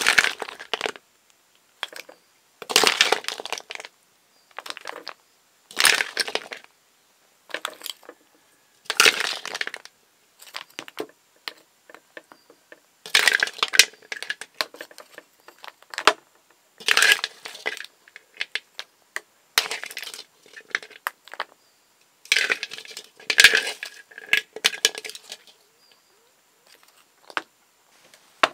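Cooked stream snail shells clattering and rattling against each other in short bursts every two to three seconds, with quiet gaps between.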